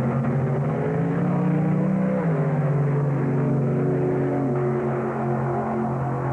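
Two drag-race cars accelerating hard down the strip. The engine note climbs, drops sharply about two seconds in at a gear change, then holds a steady drone as the cars pull away.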